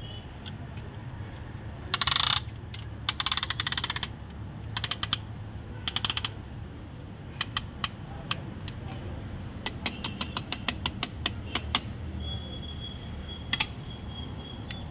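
A ratchet clicking in short rapid runs, then scattered light metal taps and clicks, as a ringed piston is fitted into the engine block.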